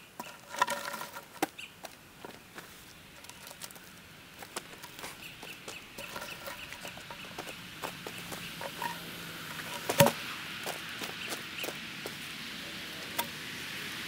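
Boots crunching on gravel and scattered wooden knocks as logs are shifted by hand, with one sharp, loud knock about ten seconds in. A bird calls near the start.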